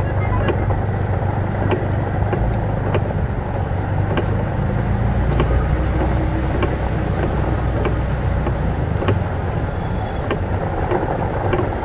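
Bajaj four-stroke auto rickshaw engine running with a steady low hum, over heavy rain and tyres hissing through a flooded road. Scattered sharp ticks come about once a second.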